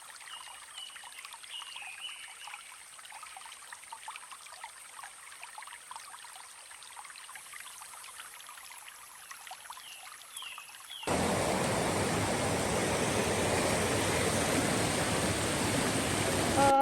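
Mountain stream water: a quiet trickle with a few faint high chirps, then about 11 s in it cuts suddenly to a much louder, steady rush of fast-flowing water.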